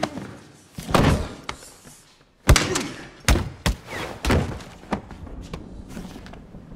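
Hand-to-hand fight impacts: a run of heavy thuds and slams as blows land and a body strikes furniture and the floor. The loudest is about two and a half seconds in, and it trails off into lighter knocks.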